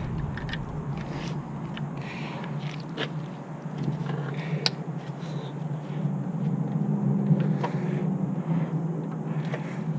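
Scattered light clicks and scrapes of hands working the drive belt onto the engine's pulleys, over a steady low rumble.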